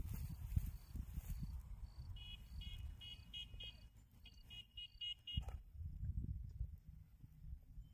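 A bird's rapid chirping: two runs of short, high chirps, about five a second, between about two and five seconds in. Under it is low rumbling and rustling from the fish being handled on dry grass.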